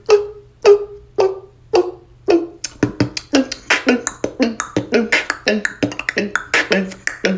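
Beatboxing: vocal percussion made with the mouth. It opens with spaced beats, each carrying a short falling tone, about two a second, then breaks into a fast, dense run of kicks and snares about two and a half seconds in.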